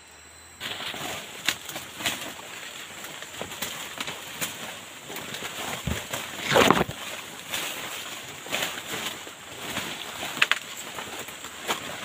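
Footsteps and leaves and branches rustling and crackling as people push through dense forest undergrowth, with one louder rustle about six and a half seconds in.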